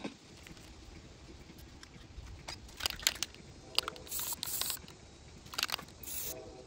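Aerosol spray can spraying a coat onto small metal tin lids in a few short bursts of hiss, the longest about four seconds in, with a few clicks before them.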